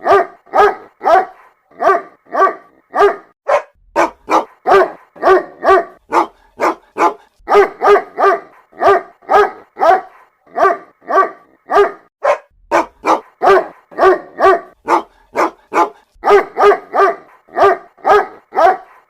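A dog giving short barks in quick runs of two to four, about two to three a second with brief pauses between runs, sold as a mother dog calling her puppies.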